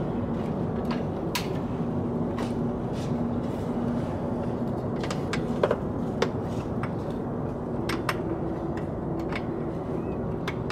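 A ratchet and 12 mm socket loosening the nut on a car starter motor's power-cable terminal: scattered, irregular metallic clicks and taps, over a steady low hum in the background.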